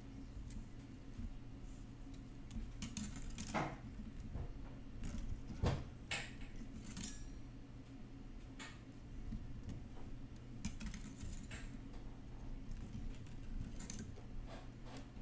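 Thin half-round wire being pulled through and coiled by hand around a wire ring band: scattered light metallic clicks and scrapes of wire against wire. A faint steady low hum runs underneath.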